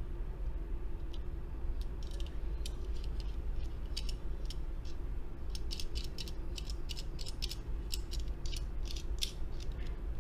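A small die-cast metal toy car being handled and turned in the fingers: a run of light clicks and ticks, sparse at first and coming thick and fast in the second half, over a faint steady hum.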